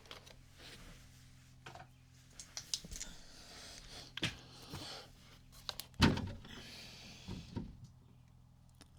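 Handling noises: scattered knocks and scrapes, with one loud thump about six seconds in, over a faint steady low hum.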